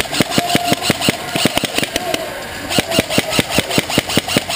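Fast, even footfalls of someone running over the ground, about six thuds a second, with a short break a little after two seconds in.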